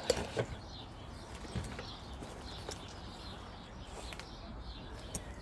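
A few light clicks and knocks of hand tools being handled, with faint birdsong in the background.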